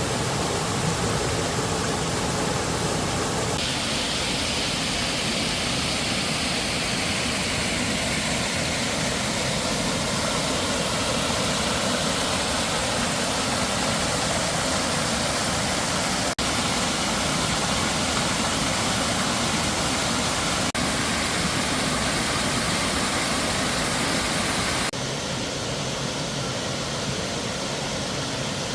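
Steady rushing of a mountain valley stream, a dense even hiss of flowing water. The tone shifts abruptly a few times, as different stretches of water follow one another.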